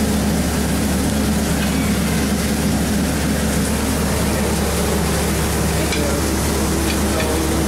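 Steady room noise of a busy buffet hall: a constant low hum with an even hiss over it and faint, indistinct background chatter.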